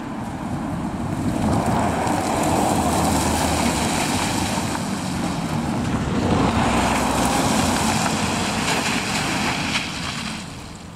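Cars driving past close by on a wet road, a rushing tyre noise that swells twice and falls away shortly before the end.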